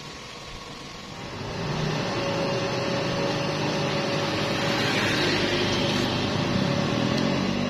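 Stick welding machine's cooling fan running behind its perforated front panel, a steady mechanical whir and hum that grows louder about a second and a half in and eases off near the end.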